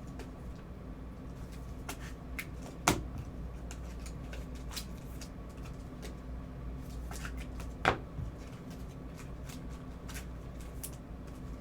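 Trading cards being handled and slid against one another, with soft scattered ticks and two sharper clicks a few seconds apart, over a steady low room hum.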